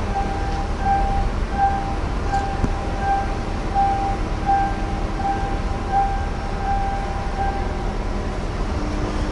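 An electronic warning beeper sounding about one and a half times a second over a steady low rumble; the beeping stops about eight seconds in.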